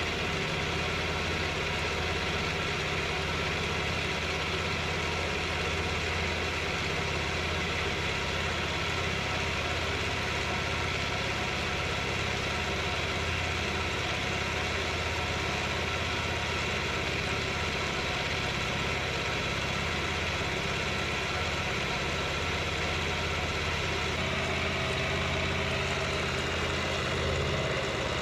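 Milling machine running steadily, its end mill cutting along the edge of tack-welded steel plates to machine off a rough plasma-cut edge. The tone of the machine changes slightly near the end.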